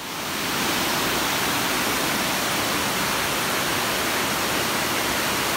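Water spilling over a low dam and crashing into churning whitewater below: a steady, loud, even rush.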